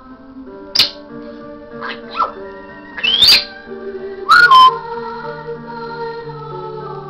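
African grey parrot whistling and squawking over background music: a sharp shriek about a second in, a couple of small chirps, a loud rising whistle around three seconds, then the loudest squawk at about four and a half seconds, trailing into a long, slowly falling whistle.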